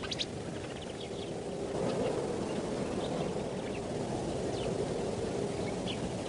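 Outdoor ambience: a steady low rumble with short, high chirps scattered through it.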